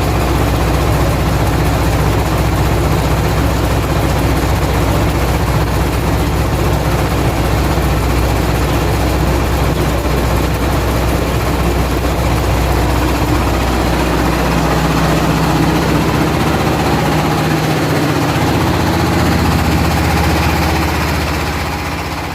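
Floating fish-feed pellet extruder machine running with a steady, loud drone and low hum; the pitch of the low hum shifts slightly past the middle, and the sound fades out near the end.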